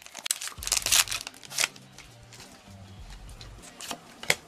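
Foil booster-pack wrapper crinkling and tearing as the trading-card pack is ripped open and the cards are pulled out, in a few short bursts during the first two seconds, then a sharp click near the end.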